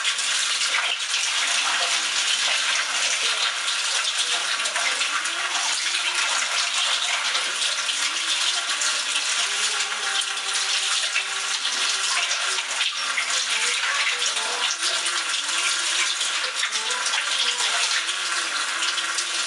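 Kitchen tap running steadily into a sink as freshly boiled buckwheat noodles are rinsed under cold water to wash off their starch.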